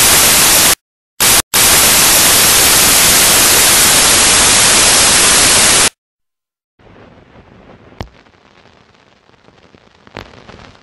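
Loud white-noise static that cuts out briefly twice in the first second and a half, then stops suddenly at about six seconds. After a short silence comes a faint hiss with two sharp clicks.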